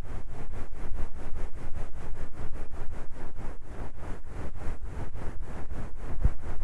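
A towel rubbed on the microphone in quick, even strokes, about six a second, as an ASMR trigger.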